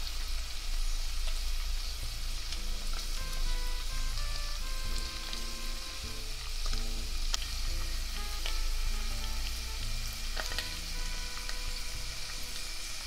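Chicken gizzards sizzling steadily as they fry in oil and butter in a stainless steel pot. Their own juices have fully cooked away, so the meat is now sautéing in the fat.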